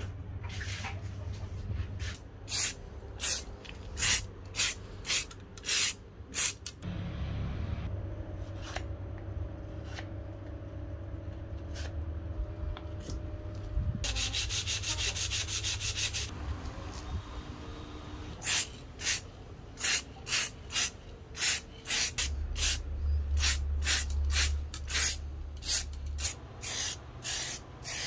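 Hand sanding of a drill press part, sandpaper rubbed back and forth in strokes about two a second, over a steady low hum. There is a faster run of strokes around the middle.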